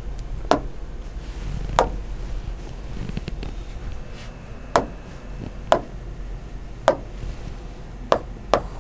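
A pen tapping against the glass of an interactive display board while writing and picking tools: about seven short, sharp taps a second or so apart, over a low steady hum.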